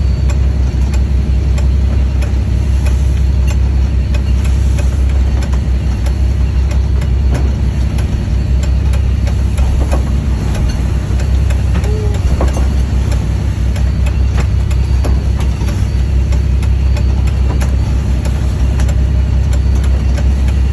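Fishing boat's engine running steadily with a deep, even drone, with scattered faint knocks over it.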